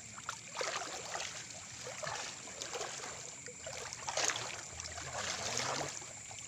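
Water splashing and sloshing in irregular bursts as a fishing net is hauled up and handled in shallow water by someone wading.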